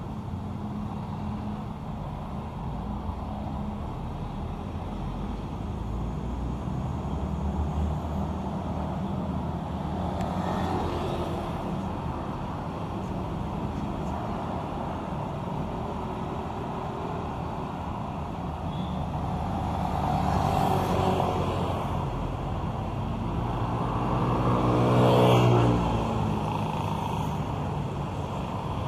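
Road traffic: a steady hum of vehicle engines with several vehicles passing by. The loudest is a pitched engine passing close about three-quarters of the way through.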